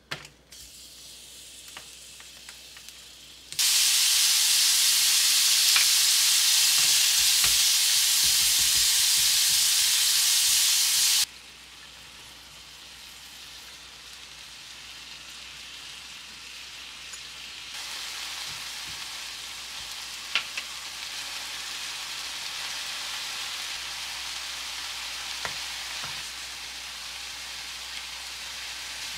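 Food sizzling in a hot frying pan. A loud sizzle starts abruptly a few seconds in and cuts off about eight seconds later, followed by a quieter sizzle that slowly grows, with a few light utensil taps.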